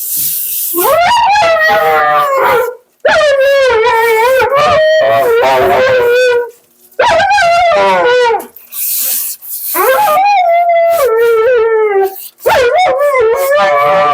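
Siberian husky howling and 'talking' in long, wavering woo-woo calls, about five in a row with short breaks between them. Brief bursts of hiss come near the start and around the middle.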